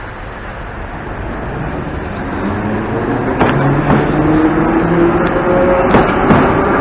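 Ezh3 metro train running into the station and past, its noise building steadily as it nears, with a few steady whining tones and sharp wheel knocks over rail joints about halfway through and near the end.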